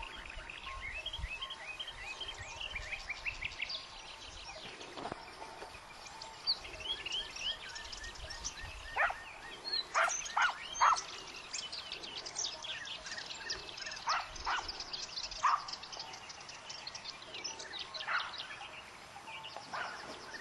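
Songbirds chirping and trilling over a scrubby hillside, with short barks or yelps from hunting hounds: a quick cluster about halfway through and a few single ones later.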